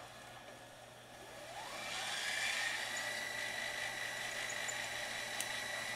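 Marantz MV8300 digital VHS deck's tape transport fast-forwarding a cassette: about a second and a half in, the reels spin up in a rising whine that levels off into a steady high whir.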